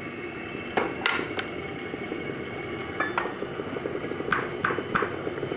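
1940s horizontal milling machine running off a treadmill motor: a steady mechanical drone from the gear train and spindle, with a fast fine rattle and several sharp metallic clanks and clicks from the gears and levers.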